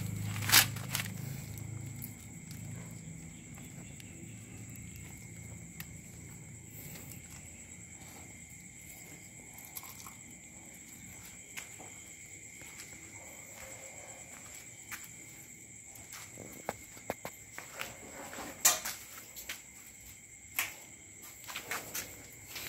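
Scattered footsteps and light knocks on dirt ground, with louder knocks about half a second in and near the 19-second mark and more frequent ones toward the end. A faint, steady high-pitched drone runs underneath, and a low hum fades out over the first several seconds.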